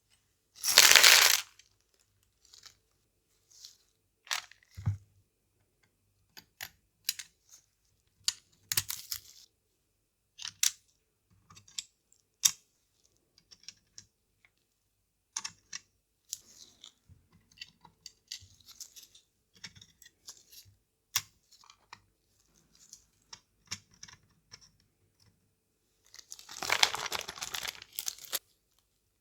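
Small plastic and metal parts of a Nintendo DSi XL being handled and fitted into a new shell: scattered light clicks and taps, with two longer rustling, tearing sounds, one about a second in and a longer one near the end.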